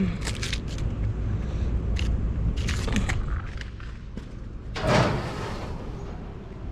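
Rummaging through trash in a dumpster: plastic bags and cardboard rustling and knocking about, with the loudest rustle and thud about five seconds in, over a low rumble that fades partway through.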